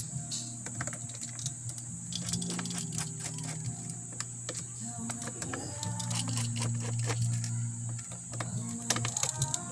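Irregular plastic clicks and taps from a small flashlight's casing being handled and pried open.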